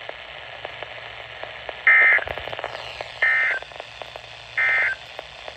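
Three short EAS end-of-message data bursts (SAME digital tones, a harsh warble near 2 kHz), evenly spaced about a second and a half apart, closing the alert. Steady radio hiss with faint scattered static clicks runs under them.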